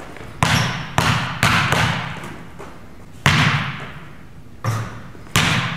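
A basketball thudding during shooting practice: six sharp, irregularly spaced thuds of the ball off the hoop and the gym floor, each ringing out in the echo of the large gym.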